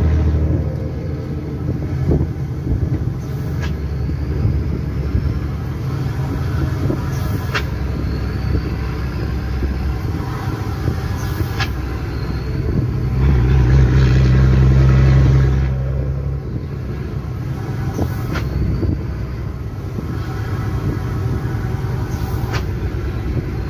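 Mercedes-Benz 1620 truck's six-cylinder diesel engine running on the road, heard from inside the cab with a steady low rumble. The engine grows louder for about three seconds a little past halfway, then settles back.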